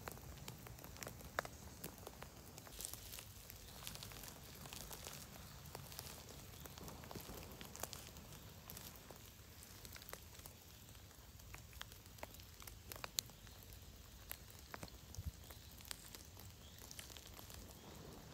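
Faint steady rain in a spruce forest: scattered drops ticking irregularly over a low hiss. Near the end, a hand rustles in the needle litter while gripping a porcini.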